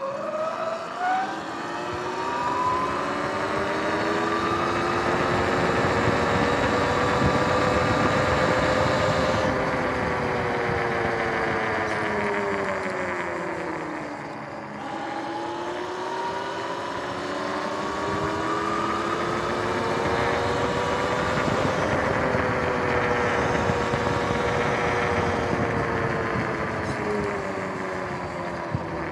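Electric dirt bike's motor and drivetrain whine, rising in pitch as the bike speeds up, sinking to a low point about halfway as it slows, then rising and falling again, over tyre and wind noise.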